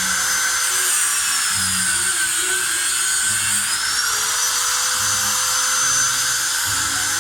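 Power tool motor whining steadily, its pitch sagging for a second or two about two seconds in and then climbing back up, as if briefly loaded. Background music with short repeating bass notes plays alongside.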